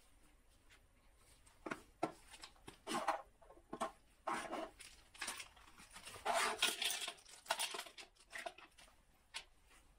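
Packaging being handled and opened: an uneven run of crinkling, rustling bursts, some short and sharp, some longer, starting about two seconds in and dying away near the end.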